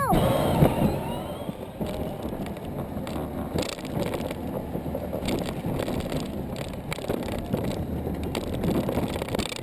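Small children's ride-on kart rolling over street pavement: a steady rumble of the wheels with scattered knocks and rattles as it goes over bumps.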